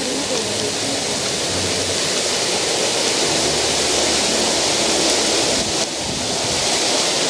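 Water cascading over the rim of a large fountain, a steady rushing hiss.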